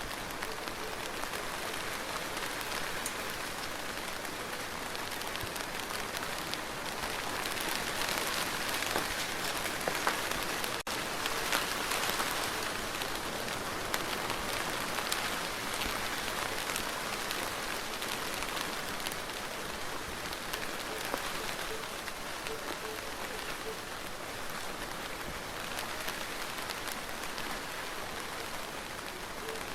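Steady rain falling on a surface: a dense, even hiss flecked with the ticks of single drops. It swells heavier for several seconds near the middle.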